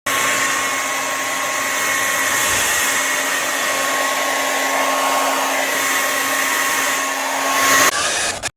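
Revlon infrared ionic hair dryer running: a steady rush of air with a constant motor hum. Just before the end the hum drops out, and the sound then cuts off abruptly.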